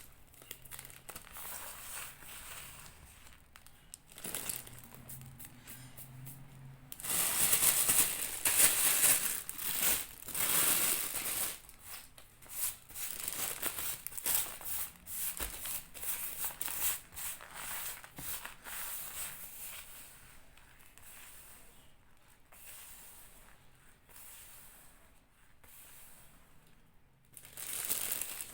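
Slate pencils being crunched close to the microphone: a dense run of fine, dry crackling crunches that comes and goes, loudest for several seconds starting about seven seconds in.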